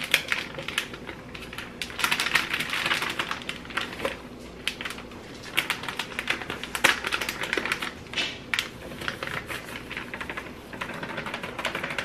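Plastic bag of fish-fry coating crinkling and rustling as it is opened and tipped into a plastic bowl: irregular crackling in bursts.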